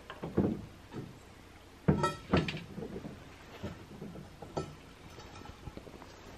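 Metal camp cookware clinking and knocking: a string of light metal knocks, several with a brief ring, loudest about two seconds in.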